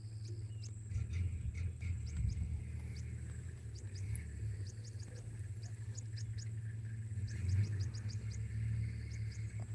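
Steady low rumble of idling and moving safari vehicles, with scattered short high chirps and a thin steady high whine over it.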